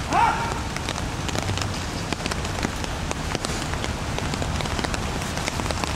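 Steady rain falling on open umbrellas: a constant hiss with many small, sharp drop taps.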